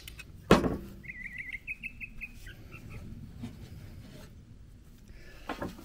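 A sharp knock about half a second in, then a bird chirping in the background: a quick series of short high notes lasting about two seconds.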